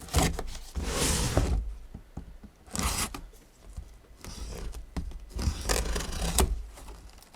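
Cardboard box being slit open with a folding knife: several short bursts of tearing and scraping.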